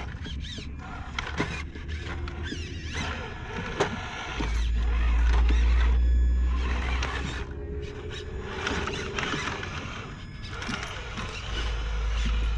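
Electric motor and geared drivetrain of a Traxxas TRX-4 1/10-scale RC crawler whining, rising and falling with the throttle, with a few knocks of the tyres on the wooden boards. A low rumble, loudest from about four to seven seconds and again near the end, is the strongest sound.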